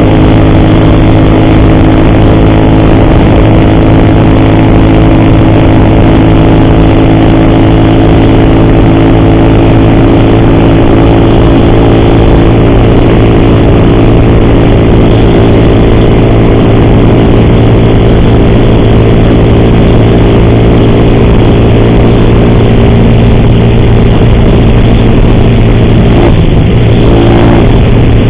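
Motorcycle engine running steadily at moderate cruising speed, with road and wind noise. The engine note dips briefly near the end and picks up again. The rider fears the cam chain is making an ugly noise.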